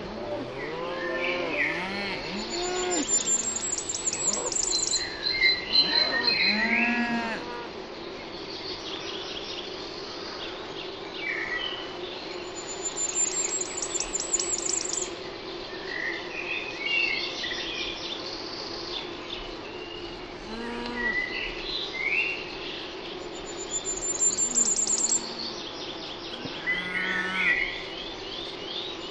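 Cattle mooing in short calls now and then, over songbirds singing and chirping. One bird repeats a phrase ending in a high rising trill about every ten seconds, with a steady low hum underneath.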